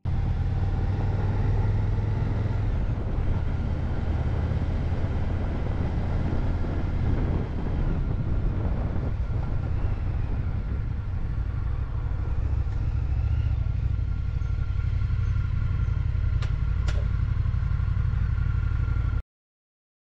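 Indian FTR V-twin motorcycle riding at road speed, engine and wind rumble on the bike-mounted camera's microphone, steady throughout and cutting off abruptly near the end.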